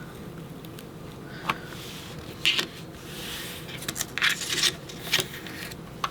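Creative Memories circle-cutting blade run around a template to cut a small circle from paper: irregular scraping strokes and sharp clicks, busier in the second half.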